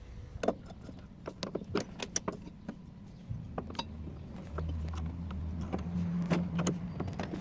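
Hand tools and metal parts clinking and tapping irregularly while a top-loading washing machine's gearbox is taken apart. A low steady hum comes in about three seconds in and gets louder about a second and a half later.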